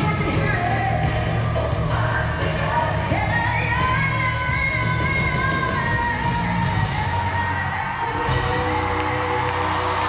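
Live country-pop song: a woman sings lead into a handheld microphone over a band with drums and guitars, heard from the audience in a large arena, with some yells from the crowd.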